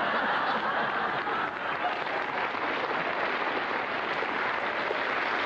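Studio audience applauding: a steady wash of clapping.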